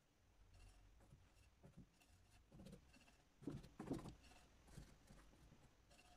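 Faint scratching of a paintbrush dabbing and stroking oil paint across a painting panel, with a couple of louder soft bumps a little past the middle.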